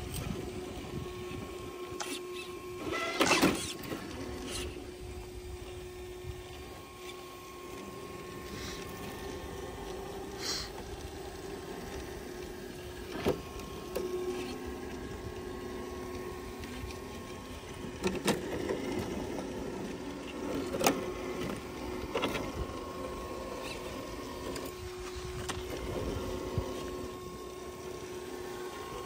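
Electric motor and geared drivetrain of a six-wheel RC rock crawler whining steadily at crawling speed. Scattered knocks and clatters come from its tyres and chassis on rock, the loudest a burst about three seconds in.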